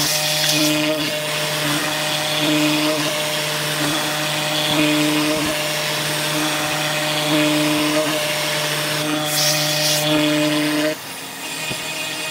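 Router on a DIY lowrider CNC machine running while its end mill cuts into a wooden sheet: a steady motor drone with higher tones that come and go as the machine moves. Short bursts of hiss at the start and about nine seconds in, and the sound drops a little about eleven seconds in.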